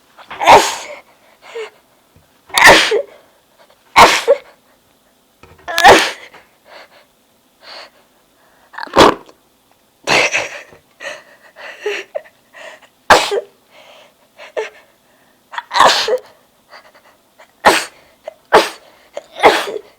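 A young woman sneezing over and over, about ten sharp sneezes a couple of seconds apart, with short, quieter breaths and noises between them.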